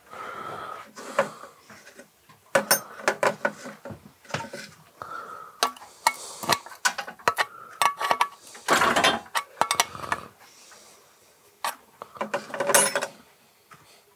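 Metal tools clinking and scraping, with ratchet-like clicks, as a spanner is fitted and a nut tightened on a moped's front end.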